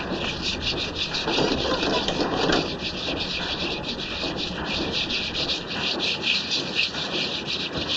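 Rapid, rhythmic scrubbing: brush-like rubbing strokes repeating several times a second as mechanical scrubbing arms work over a soaped-up dog.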